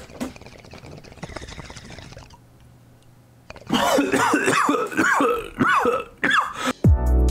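A man coughing and clearing his throat in a run of loud, strained, wordless vocal sounds, starting about halfway through. A music sting with deep bass cuts in near the end.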